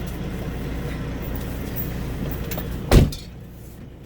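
Semi truck's diesel engine idling steadily with a low rumble. A single loud thump comes about three seconds in, and the rumble is quieter after it.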